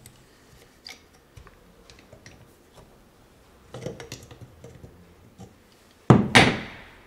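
Pliers gripping and wrenching at the end tank of a car heater core, forcing it open: faint scattered clicks and scrapes, then one loud knock about six seconds in.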